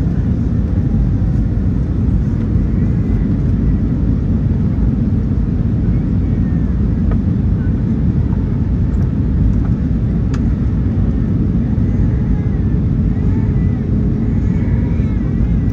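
Airbus A319 airliner noise: a loud, steady low rumble of jet engines and airflow that holds even throughout, with faint indistinct voices above it.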